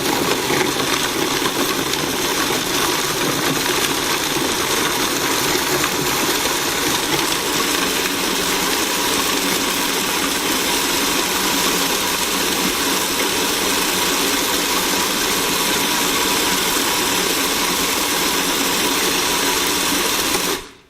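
A 30-year-old food processor running loud and steady, its motor grinding nuts and dates into a sticky paste. It switches off suddenly just before the end.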